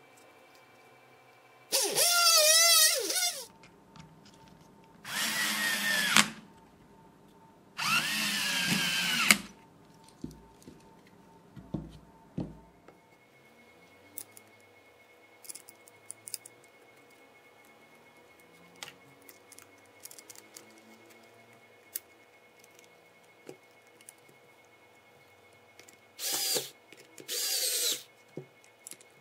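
Electric drill running in five short bursts: three in the first ten seconds and two close together near the end, with the motor's pitch wavering under load. Light clicks and handling knocks come between the bursts.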